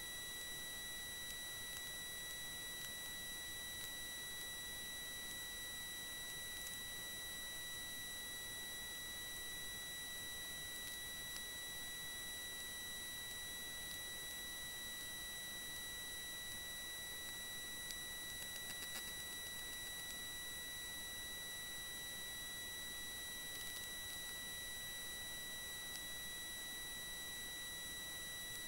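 Steady high-pitched electronic whine with even overtones over a faint hiss, with a brief cluster of faint ticks about two-thirds of the way in.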